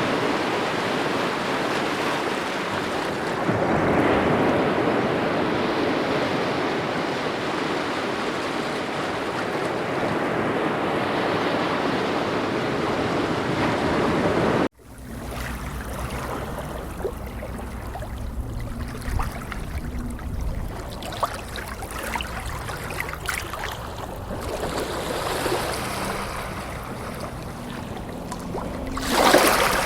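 Ocean surf: waves washing ashore in a steady rush. About halfway through it cuts suddenly to a quieter recording of wind rumbling on the microphone and light water with small ticks. A wave surges up near the end.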